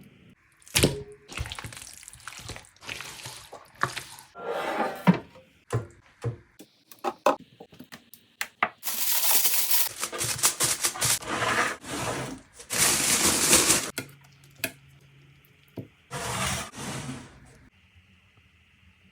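Kitchen preparation sounds: a run of knocks, clicks and clatter from dishes and utensils being handled, with several stretches of rushing noise, the longest about nine and thirteen seconds in.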